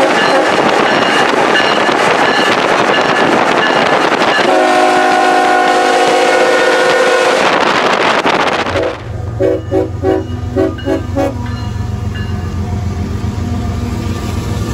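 CSX freight train's horn sounding a long chord over heavy road and wind noise from a car pacing the train. After a cut, a few short horn toots, then the steady low rumble of CSX diesel locomotives passing close by.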